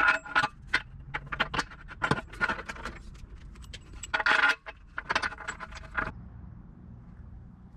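Metal parts clinking and rattling against each other in a quick irregular run of sharp clicks with short ringing, which stops about six seconds in, leaving a low hum.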